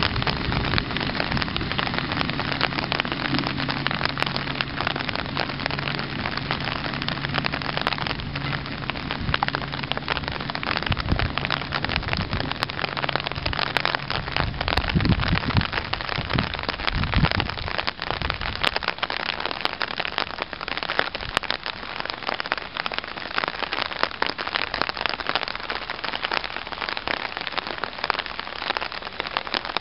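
Steady rain pattering. Under it the railbus's diesel engine runs with a steady low hum that fades out about halfway through, followed by a few low rumbles as the railcar draws away. After that there is mostly rain.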